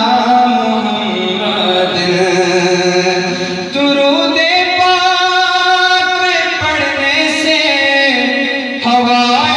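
A man singing a naat, an Urdu devotional song in praise of the Prophet, solo into a microphone. He holds long, wavering notes and steps from one pitch to the next.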